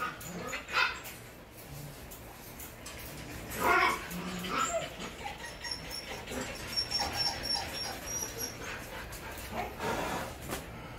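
A caged dog barking in three short calls, the loudest about four seconds in, with thin high whines in between.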